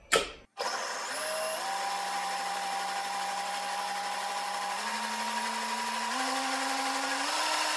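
Monsieur Cuisine Connect food processor blending melon and yogurt: a short click, then the blade motor's steady whine, which steps up in pitch several times as the speed is turned up from 5 towards 10.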